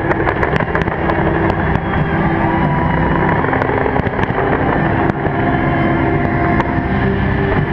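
Dense fireworks barrage: a loud, continuous wash of bangs with many sharp pops scattered through it.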